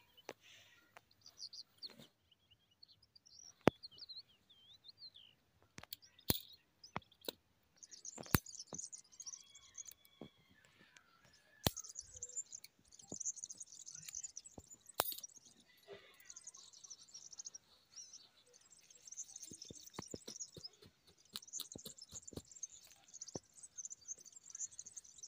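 Small birds chirping and twittering in high notes, sparse at first and then nearly continuous, with a few sharp clicks scattered through.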